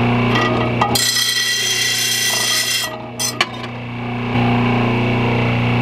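A steel lawn mower blade is pressed against the spinning wheel of an Oregon bench blade grinder, giving a high rasping grind from about a second in that lasts about two seconds. A couple of sharp clicks follow as the blade comes off the wheel.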